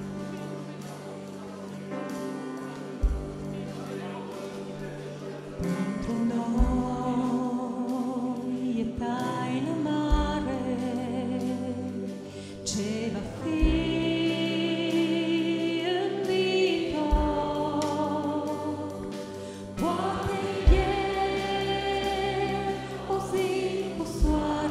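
Worship song: a woman sings lead into a microphone over an instrumental accompaniment, with a low drum beat about every three and a half seconds. The singing comes in about five seconds in.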